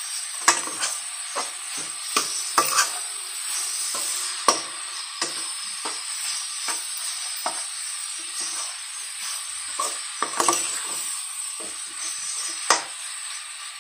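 Spatula stirring and scraping against a metal kadhai, with frequent irregular knocks, over the steady sizzle of radish bhujia frying in oil.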